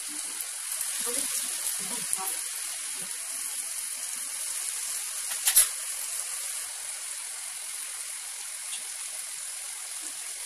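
Chopped vegetables sizzling in a hot kadai as soya sauce is stirred in, a steady hiss with a few soft scrapes of a steel spoon in the first few seconds. One sharp tap about halfway through.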